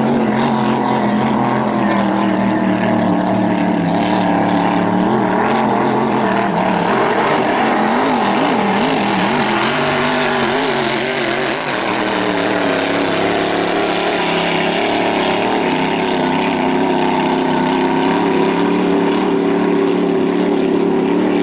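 Vintage racing hydroplane engines running at full speed, a steady loud engine drone whose pitch wavers up and down midway through.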